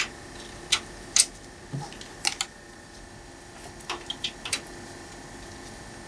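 Scattered sharp clicks and light knocks as USB keyboard and mouse plugs are pushed into the ports at the back of a desktop tower and the cables are handled, a few a second for the first four seconds or so, then stopping. A faint steady hum runs underneath.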